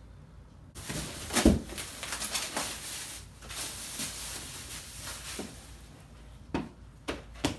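Packaging being handled as chair parts come out of the box: crinkling, rustling plastic and cardboard with a thump about a second and a half in, then a few separate knocks near the end.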